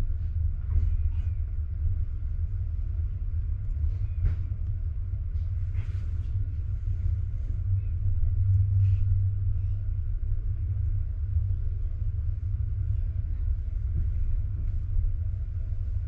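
Passenger train rolling slowly out of a station, heard from inside a carriage: a steady low rumble with a few faint knocks.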